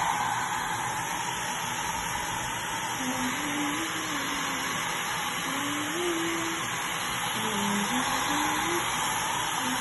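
Hand-held electric hair dryer running steadily on setting 3, blowing a continuous rush of hot air.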